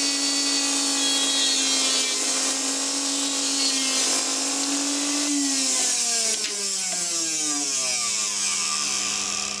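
Brushed universal motor running fast under overload, a steady high whine over the hiss of its sparking brushes and commutator. About five seconds in, the whine falls in pitch as the motor winds down and dies, burnt out with open windings.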